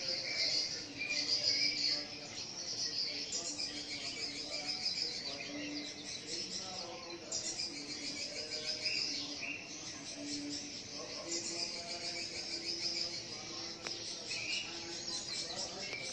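Many swiftlets twittering at once: dense, rapid, overlapping high chirps that continue without a break, with a few low steady tones underneath.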